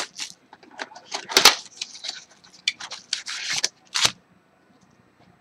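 Crinkling and rustling of foil trading-card packs and their cardboard box being handled: a string of short crackly crinkles, the loudest about a second and a half in, dying away near the end.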